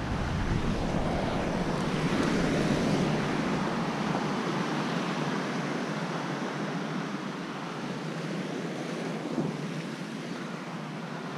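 Ocean surf washing against the rocks at the foot of the cliff, a steady rushing that swells over the first few seconds and then eases, with wind on the microphone. A brief knock comes about nine seconds in.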